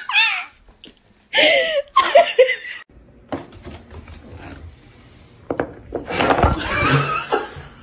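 A person's voice in two short outbursts in the first three seconds, then a plate being set down on a wooden floor, with light clicks and handling noise about five to seven seconds in.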